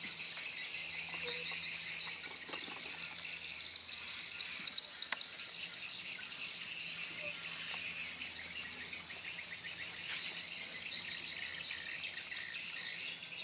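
Insect chorus: a dense, steady high-pitched trilling that carries on unbroken, with a faint low hum beneath it.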